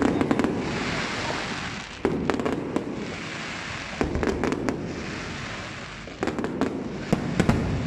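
Fireworks display: aerial shells bursting about every two seconds, each burst followed by a rapid string of sharp pops and crackles that fade out.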